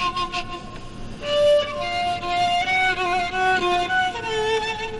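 Background score: a slow, melancholy-sounding violin melody of held notes with vibrato.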